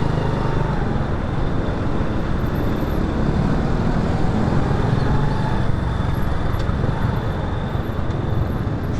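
A motorcycle engine running steadily in slow traffic, mixed with the rumble of other vehicles' engines around it on a jammed road.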